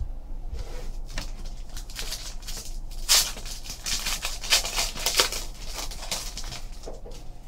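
Foil trading-card pack wrapper crinkling and being torn open by hand, loudest about three seconds in and again near five, after a sharp tap at the very start.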